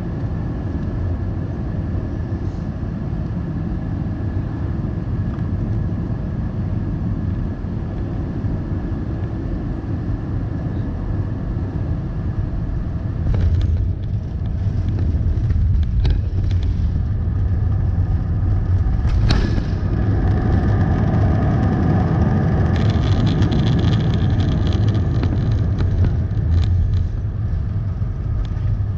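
Cabin sound of an Airbus A320 with CFM56 engines landing: a steady low rumble of engines and airflow on short final, then the touchdown about halfway through with a few knocks. After that the engines grow louder during the rollout on the runway, as they do under reverse thrust.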